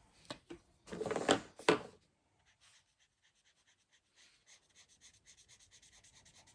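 A few clicks and knocks of handling about a second in, then a felt-tip marker rubbing back and forth on paper in quick short strokes, about five a second, growing steadily louder; the Y9 marker in use is drying up.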